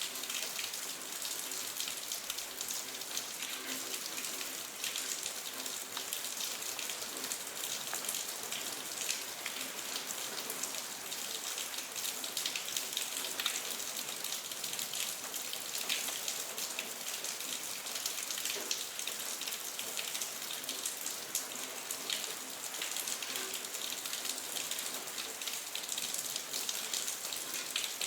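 Steady rain falling, with many close drops ticking over an even hiss of rainfall.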